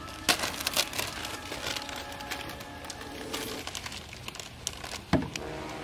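Foil chip bags crinkling as they are handled, in short irregular crackles, over quiet background music.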